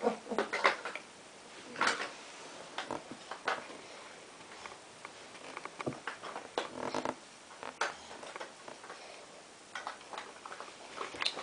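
Plastic Lego pieces being handled: scattered, irregular clicks and light rattles, a few at a time with short gaps between.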